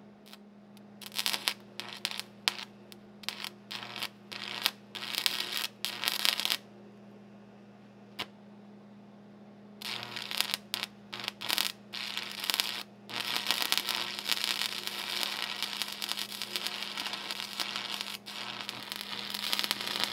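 Stick welder arc crackling and spitting on steel, struck and run in a string of short bursts for the first several seconds, then after a pause of a few seconds run as a long continuous bead. A steady low hum sits under it throughout.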